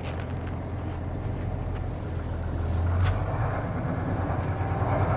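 Mercedes-Benz Unimog U2450 6x6's diesel engine running at low speed as the heavy truck creeps down a slope. There is a sharp click about three seconds in, after which the engine note shifts slightly.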